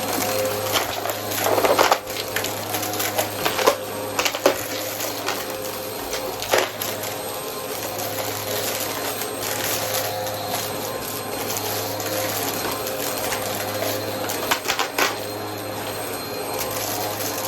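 Vacmaster vacuum cleaner running steadily with a constant hum, broken by several short sharp clicks and rattles.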